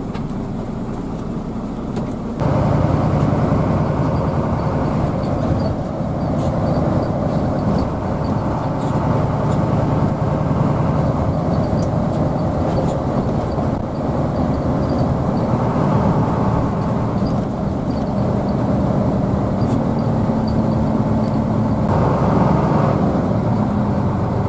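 Hino AK bus engine running and road noise heard from inside the moving bus, a steady drone that gets louder at about two and a half seconds in and holds there.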